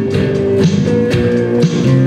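Live music: guitar strumming chords in a steady rhythm, about two strums a second, as the instrumental opening of a song.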